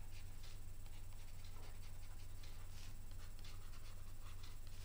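Faint scratching and tapping of a stylus writing on a pen tablet in short, irregular strokes, over a steady low electrical hum.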